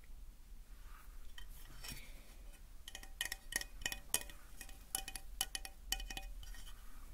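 Small hard objects clinking and tapping together: about a dozen light, ringing clinks in quick succession in the middle, with soft handling sounds around them.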